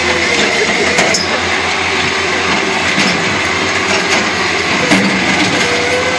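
Diesel engines of two skid-steer loaders, a TCM and a Caterpillar, running hard under load as the machines push against each other. A steady high whine runs through it, and a few sharp knocks come at intervals.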